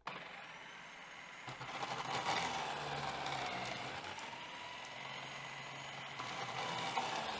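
Cuisinart food processor running on low with its grating disc, shredding raw cassava pieces pushed down the feed tube: a steady motor whine with some clatter of the chunks, louder from about a second and a half in.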